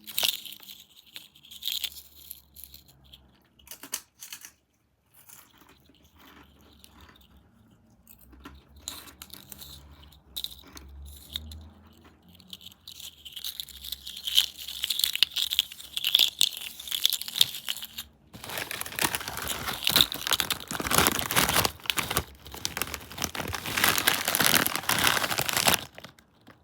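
Crinkling and crunching of a bag of Bugles Nacho Cheese corn snacks being handled, in irregular spells: scattered crackles at first, growing denser, with a long dense stretch of crinkling over roughly the last eight seconds.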